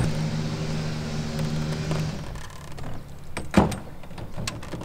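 A boat's engine running with a low steady hum that fades out after about two seconds, then a single loud knock about three and a half seconds in, followed by a few light clicks.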